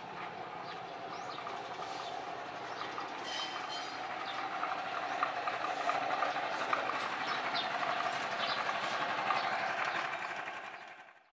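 A steady mechanical running noise with short high chirps over it, fading out near the end.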